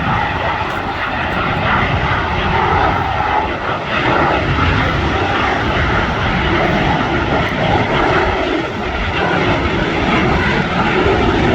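Aircraft engines of a display formation flying past, a loud steady noise with no clear pitch that swells and eases slightly.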